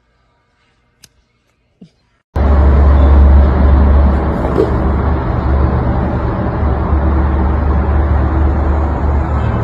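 Near silence with two faint clicks, then a loud, deep, steady noise that starts suddenly about two seconds in and runs on.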